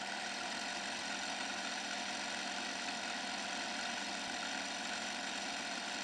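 A steady, unchanging hum with a few constant tones in it.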